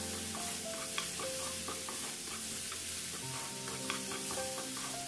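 Chopped tomatoes, onion and capsicum sizzling as they fry in butter and oil in a frying pan, stirred with a wooden spatula that now and then taps the pan. Soft background music plays along.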